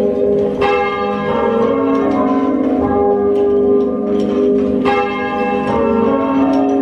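A ring of six fully muffled church bells rung full-circle in sequence, their strikes dull and overlapping. Twice a clearer, brighter stroke stands out about four seconds apart: the tenor's backstroke, left unmuffled.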